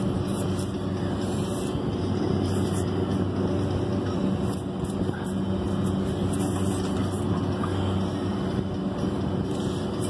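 Steady low machinery hum made of several held drones, with a few faint knocks of metal parts being handled.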